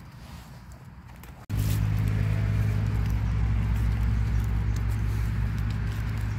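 A steady, loud low motor hum cuts in abruptly about a second and a half in and runs on. Before it and under it there is rustling of dry leaf litter as mushrooms are picked.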